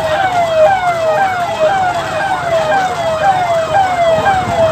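Police vehicle siren sounding in a fast repeating cycle, each tone falling in pitch about two and a half times a second, with a second siren's sweeps overlapping it.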